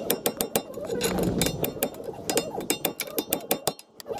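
Irregular metallic clicking and clinking of hand tools being worked on a car's suspension, several sharp clicks a second with a short pause near the end.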